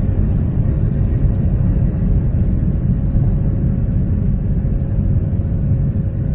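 Inside an airliner cabin during taxi: a steady low rumble from the jet engines and rolling airframe, with a faint steady hum over it.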